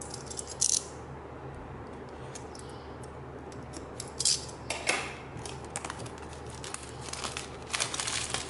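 Clear plastic shrink-wrap on an iPhone 5 retail box being picked at and torn open: a few separate scratches and crinkles, then dense crackling crinkles near the end.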